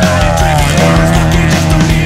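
Loud rock music with drums, a steady bass line and a bending melody line.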